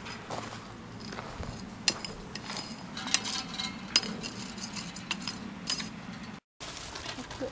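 A small hand hoe scraping through gravelly soil, its blade clinking sharply and irregularly against pebbles.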